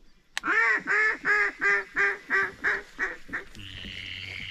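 A descending series of about ten loud hen-mallard quacks, about three a second, fading out toward the end: the mallard hail or comeback call. A steady hum follows near the end.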